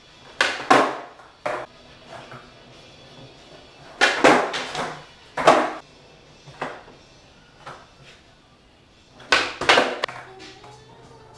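Skateboard on a concrete floor during flatground tricks: the tail popping and the deck and wheels clacking down as it lands. The sharp clacks come in three bunches, near the start, about four seconds in, and again near the end.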